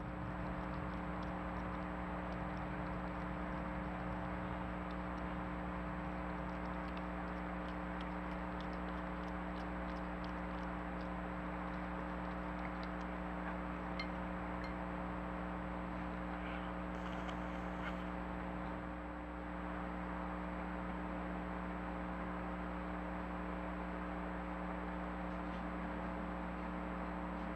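Steady electronic hum and hiss from a trail camera's built-in microphone, with faint scattered clicks during the first half.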